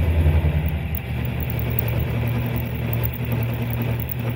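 Milling machine's end mill cutting a slot in steel plate: a steady low drone of the spindle and cut, a little louder in the first second. The cut vibrates, a vibration the machinist cannot yet trace and suspects may come from the heavy machine standing on casters or from the plate's unparallel sides in the vise.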